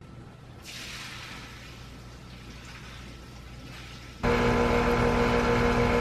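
Garden-hose water forced through an air conditioner's PVC condensate drain line to flush out the clog, first as a steady hiss of rushing water. About four seconds in it gives way to a much louder steady hum with water gushing from the drain pipe's outlet.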